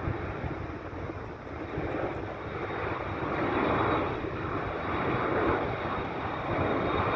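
Jet engine noise from a Boeing 747-200 freighter's four Rolls-Royce RB211 turbofans on final approach with gear down: a rushing rumble that swells in the middle, with wind buffeting the microphone underneath.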